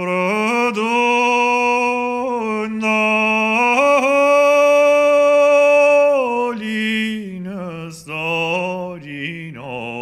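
A solo male voice singing unaccompanied: long held notes joined by small ornamental turns and slides in pitch, with short breaks between phrases.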